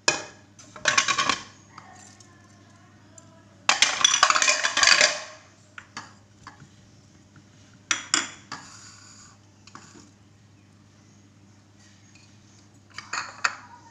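Bowls and an aluminium pressure cooker clattering as meat and chopped tomatoes are tipped into the pot, with clinks and scrapes. A longer, louder clatter comes about four seconds in; a steady low hum runs underneath.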